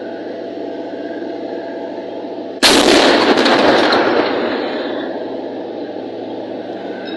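A single heavy blast of tank-fight gunfire about two and a half seconds in: sudden and very loud, with an echo that fades over about two seconds.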